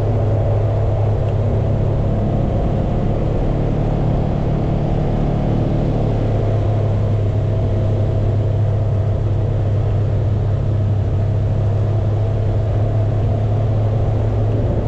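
ATV engine running at a steady, even speed with a constant low drone.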